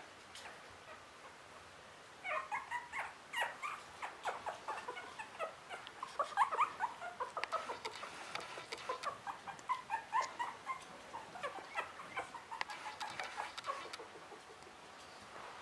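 Three-week-old Russian Toy puppies making short, high-pitched cries, many in quick succession, starting about two seconds in and dying away near the end, with light clicks among them.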